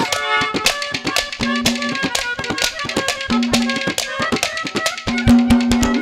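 Instrumental interlude of Haryanvi ragni folk music: a dholak drum played in fast, continuous strokes over steady, sustained harmonium chords.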